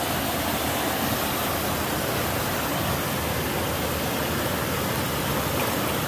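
A small waterfall and river current rushing into a clear rocky pool: a steady, unbroken rush of water.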